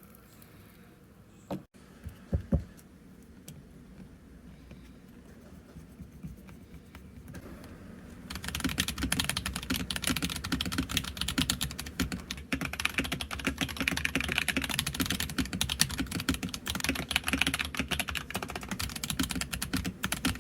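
Keystrokes on a Royal Kludge RK71 mechanical keyboard with Gazzew Boba U4T tactile switches and a silicone-filled case. A couple of loud knocks and a few scattered keystrokes come first, then continuous rapid typing from about eight seconds in.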